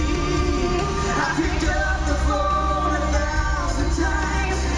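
Live country-pop duet: a man and a woman singing together over a full band with a steady bass, heard from the audience at an arena concert.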